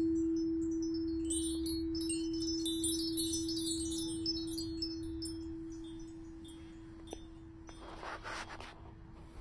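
A singing bowl's single steady tone rings on and slowly fades, while chimes tinkle in a flurry of high notes over the first few seconds. A brief rustle comes near the end.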